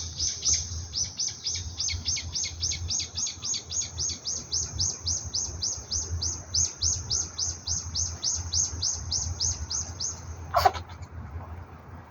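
A bird chirping in a long, even series of short high notes, about three or four a second, stopping about ten seconds in. Just after it stops comes one short, sharp burst of sound, the loudest moment.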